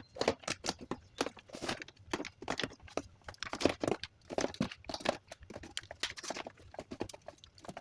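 Small plastic drink bottles being set down and packed onto fridge shelves: a quick, irregular run of light clacks and knocks, about two to four a second.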